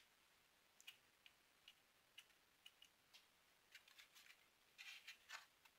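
Faint, scattered clicks and taps of a projector's casing being handled and fitted back onto its chassis, with a quick run of louder clicks about five seconds in.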